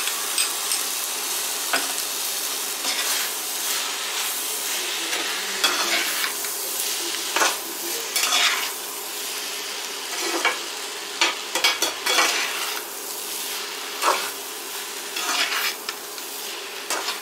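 Pasta, vegetables and milk sizzling in a hot metal kadai as they are stirred and tossed with a perforated metal spoon, the spoon scraping and knocking against the pan at irregular intervals over a steady sizzle.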